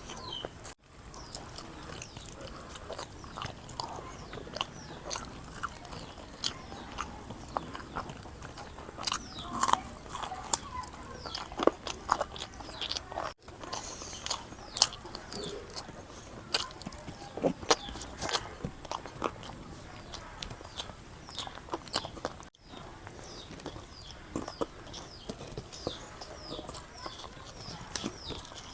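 A person eating close to the microphone: irregular chewing, smacking and crunching mouth sounds, with brief gaps where the sound drops out.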